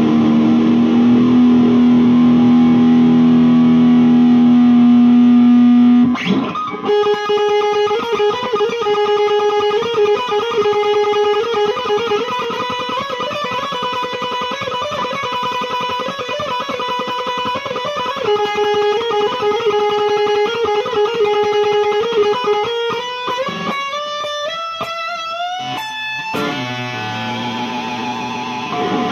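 Electric guitar (an IYV ILP 400 with a Floyd Rose tremolo) played through an amp with effects and light distortion. A held low note rings for about six seconds, then a long higher note wavers and bends. Near the end a quick run of rising notes climbs and then drops back down low.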